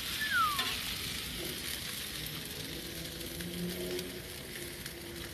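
Sliced peppers, onions and steak strips sizzling steadily on a gas grill's hot flat-top griddle, with a metal spatula scraping as it scoops them up. A brief falling squeak sounds about half a second in.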